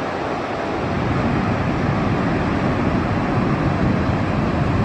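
Steady rushing of a flood-swollen waterfall pouring muddy water over a wide cliff edge after heavy rain, growing a little louder about a second in.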